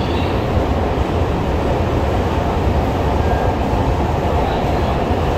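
Xiamen Metro Line 3 train running between stations, heard from inside the passenger car: a steady, deep rumble of wheels and traction with an even hiss of running noise over it.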